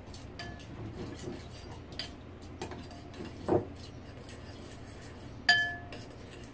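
A spoon stirring a thick black-bean sauce in a porcelain bowl, scraping and clinking against the bowl: a few light clinks, then one louder ringing clink near the end.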